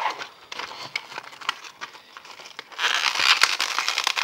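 A plastic blister pack crinkling and crackling as hands pull at it to free the toy cars, with scattered clicks at first. The crinkling gets denser and louder about three seconds in.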